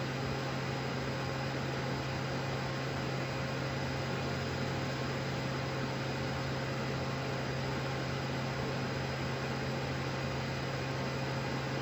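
Steady ventilation fan and equipment hum of the International Space Station's cabin, an even whooshing noise with a low drone underneath that does not change.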